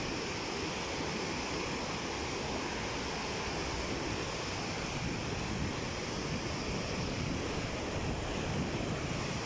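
Muddy floodwater rushing and churning through a boulder-strewn mountain river channel, a steady rushing noise with no let-up.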